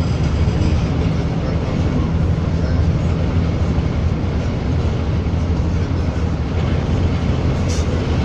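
Steady low rumble of a bus's engine and tyre noise heard from inside the cabin while cruising at highway speed, with a brief high click near the end.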